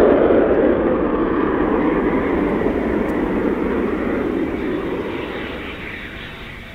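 Eurofighter Typhoon's twin Eurojet EJ200 turbofans: loud jet noise with a deep rumble, loudest at the start and fading steadily as the fighter flies away.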